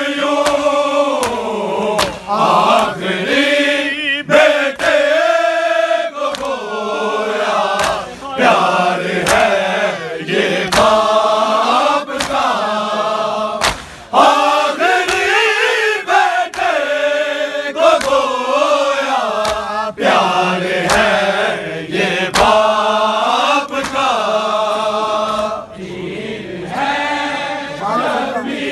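A group of men chanting a Shia noha (lament) in unison, loud and in repeating phrases. Sharp slaps of chest-beating (matam) land every couple of seconds.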